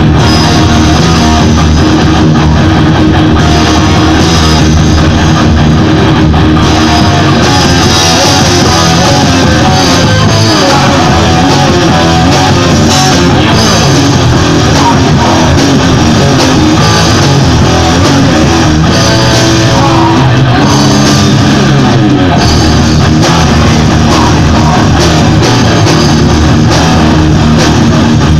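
Three-piece rock band jamming live: electric guitar, bass guitar and drum kit playing together, loud and near full scale throughout.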